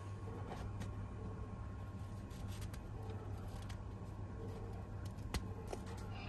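Faint crunching and crackling of fresh snow being scooped and pressed in a bare hand, as scattered soft clicks over a low steady hum.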